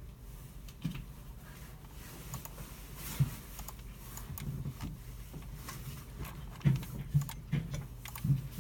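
Computer keyboards being typed on and mice clicked: scattered, irregular key taps and clicks over a steady low hum.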